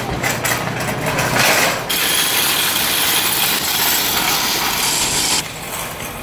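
Loud rustling and scraping on a phone's microphone as it is carried against clothing, turning into a steady loud hiss about two seconds in that cuts off abruptly near the end.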